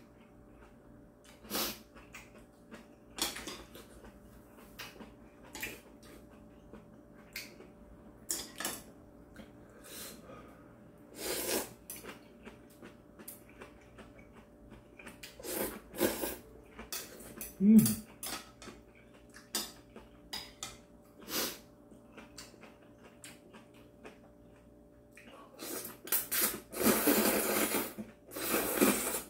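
Eating sounds: chopsticks and a metal spoon clicking against a ceramic bowl, with short slurps of kalguksu noodles and a long run of loud noodle slurping near the end. A brief low hum of the voice comes a little past halfway.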